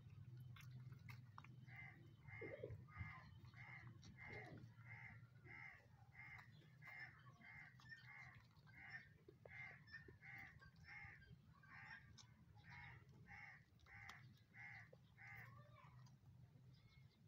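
A bird calling in a long, even series, about three calls every two seconds, faint over a low steady hum.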